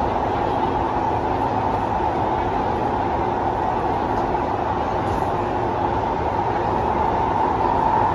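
Cabin noise of a Kawasaki Heavy Industries C151 metro train running through the tunnel: a steady rumble of wheels on rails and running gear, with a constant hum near 1 kHz.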